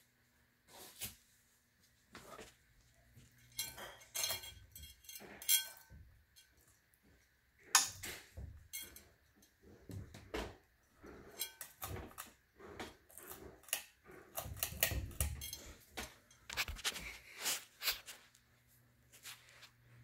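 Kichler Sterling Manor ceiling fan running with a low, steady hum, under irregular clinks, knocks and rustles that come and go throughout.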